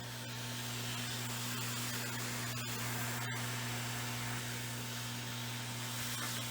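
Hot-air gun blowing steadily: an even hiss over a constant low hum.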